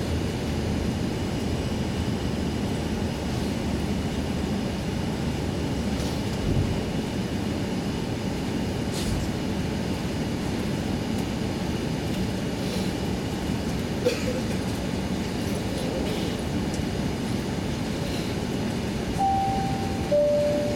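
Airbus A380 passenger cabin noise while taxiing: a steady low rumble of the idling engines and rolling gear, with a few faint knocks. Near the end, two falling chime tones sound.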